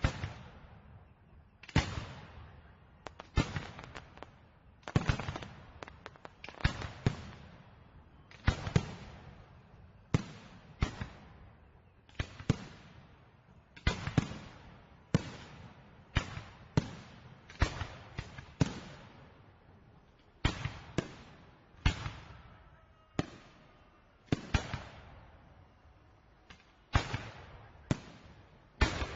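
Fireworks exploding in a long, steady series of sharp bangs, about one every second or so, each fading away over about a second.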